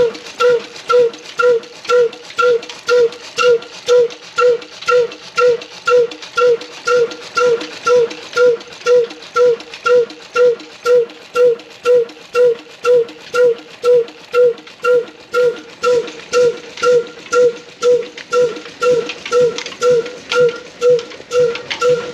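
Old single-cylinder horizontal stationary engine running steadily at slow speed, its exhaust giving an even, hollow pop about twice a second.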